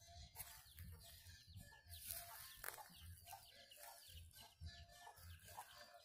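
Domestic hen clucking quietly, a run of short clucks about every half second.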